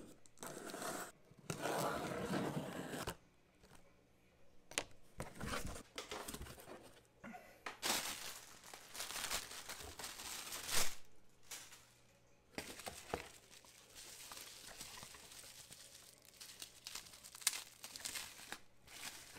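Packing tape torn from a cardboard shipping box in the first seconds, then cardboard flaps, a plastic bag and bubble wrap rustling and crinkling in irregular bursts as the contents are unwrapped.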